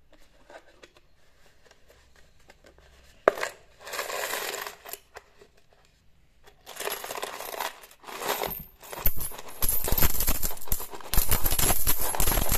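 Pakistani rupee coins being shaken out of a coin bank. After faint scraping and a sharp click about three seconds in, the coins rattle inside it in short bursts, then pour out onto a cloth in a dense stream of clinking that grows loudest near the end.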